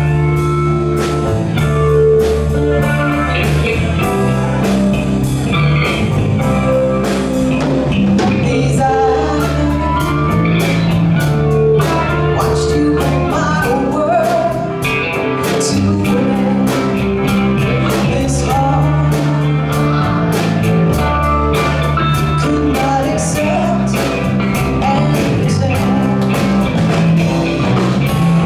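Live band playing a song: singing over guitar and a steady drum beat.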